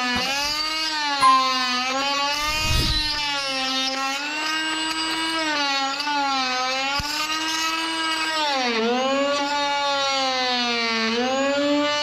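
Wesco oscillating multi-tool with a square plunge blade running as it undercuts a wooden door jamb. Its buzzing whine wavers in pitch as the blade takes load, sagging deeply about nine seconds in and again near the end.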